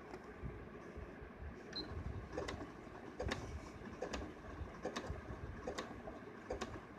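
Electric sewing machine running slowly on a zig-zag stitch, hemming a saree edge: a low motor hum with a sharp click a little more than once a second from about two seconds in.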